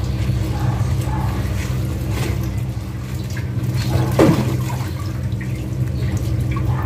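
Water running, over a steady low hum, with a short rising squeak about four seconds in.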